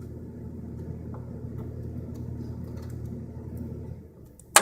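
A steady low hum that fades out about four seconds in, followed near the end by a single sharp click.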